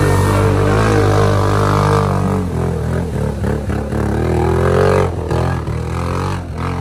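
A four-wheeled ATV's engine revving hard as the machine churns through deep mud, its pitch rising and falling with the throttle.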